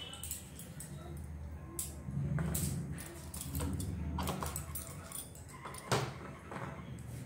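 Low steady hum of a gas burner heating oil in an iron kadai, with scattered light clicks and a sharper knock near the end.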